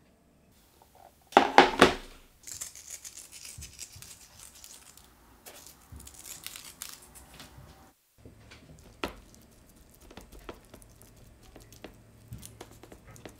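Sea salt flakes crumbled and sprinkled over raw chicken, first a loud crunchy crackle and then several seconds of fine, crisp crackling. After that come softer handling sounds and scattered light clicks as a hand rubs the seasoning into chicken thighs and drumsticks on a metal tray.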